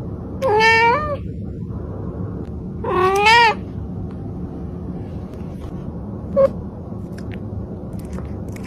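A cat meowing twice, each meow lasting well under a second and bending up and down in pitch, followed by a single much shorter call about six seconds in.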